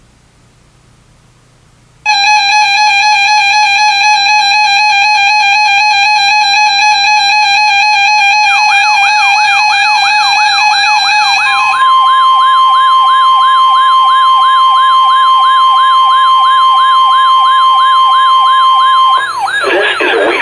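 Weather radio alert sounds for a Required Weekly Test. A loud, steady electronic alarm tone cuts in about two seconds in, and a rapidly repeating rising whoop, about four a second, joins it after about eight seconds. From about twelve seconds a steady high tone sounds, the 1050 Hz NOAA Weather Radio warning alarm tone; the alarms stop near the end as a voice begins.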